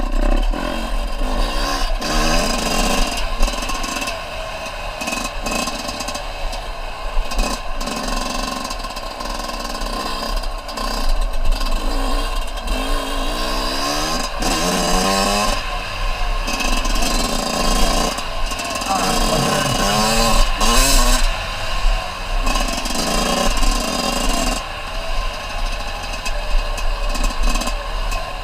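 Small off-road vehicle engine being ridden, revving up and down over and over, its pitch rising and falling with the throttle.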